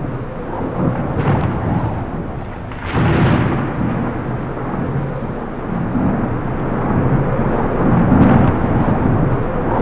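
Thunder rumbling in long rolls, swelling sharply about three seconds in and again near the end.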